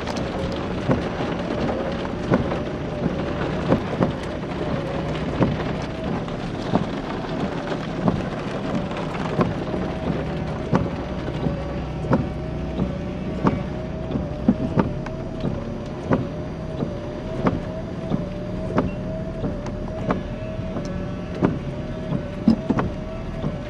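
Inside a vehicle during a rainstorm: a steady road and engine drone with a wavering hum, and frequent sharp ticks of rain striking the body and windshield.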